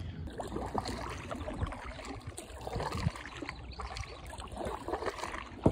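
Kayak paddle strokes in calm river water: the blades dipping and pulling, with drips and small irregular splashes and trickles. A single sharp click near the very end.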